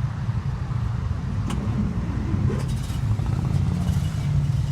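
1934 Rolls-Royce 20/25's 3.7-litre straight-six engine running at a steady idle with an even low rumble; a faint click about a second and a half in.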